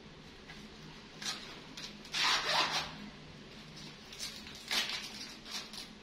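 Husk leaves being torn off an ear of fresh corn by hand: a series of dry, rasping rips, the longest and loudest about two seconds in.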